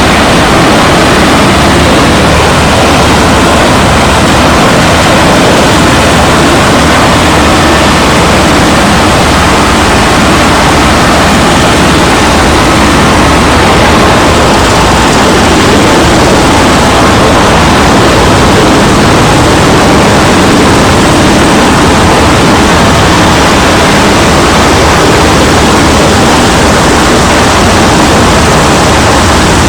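Drum wood chipper running, a loud, steady mechanical noise that carries on without a break.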